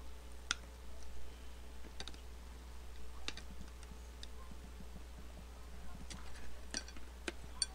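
Scattered light clicks and clinks of a metal spoon against a glass bowl as rice is stirred and mixed, about eight taps spread irregularly, over a low steady hum.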